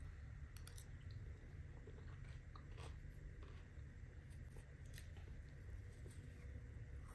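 Faint chewing of soft cucumber flesh, with scattered small crunches, and a metal spoon scraping flesh out of a hollowed cucumber half.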